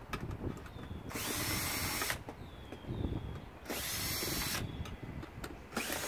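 Power drill with a Torx bit backing screws out of a stainless steel dishwasher, run in three short bursts of about a second each, with clicks and rattles of the screws and bit between.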